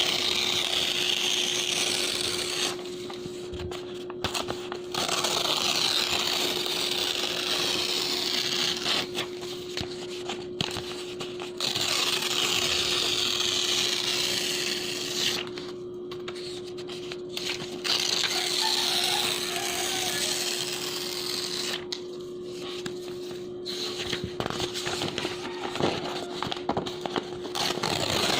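Clean bond paper being torn in about five long, slow rips, each a few seconds long with short pauses between. A steady hum runs underneath.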